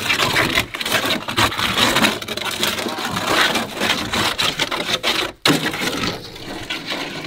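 Steel shovel blade scraping and smearing wet clay across a matte vinyl-wrapped truck door: a continuous gritty scraping made of many short strokes, with a brief break about five seconds in.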